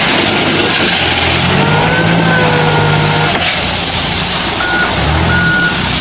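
Komatsu compact wheel loader working in gravel: the engine runs under load as the bucket pushes into the pile, with a loud rattling hiss of stones. About four and a half seconds in, its reversing alarm starts beeping, three short beeps.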